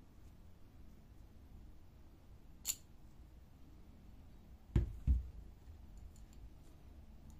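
Handling the rubber-covered lower pressure roller of a laser-printer fuser and its metal end bushing. There is one sharp metallic click about two and a half seconds in. Two dull thumps follow close together a couple of seconds later, then a few faint clicks.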